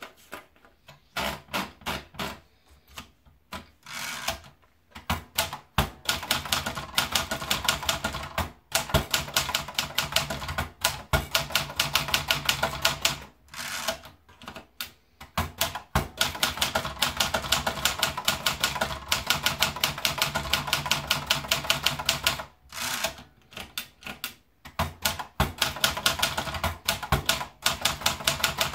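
Olympia Splendid 33 manual portable typewriter being typed on: fast runs of sharp keystroke clacks in bursts, broken by a few short pauses.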